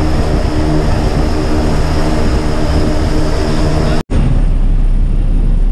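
Small propeller plane's engine running, heard from inside the cabin, a steady drone with an even hum. About four seconds in the sound breaks off for an instant and comes back as a deeper, heavier rumble.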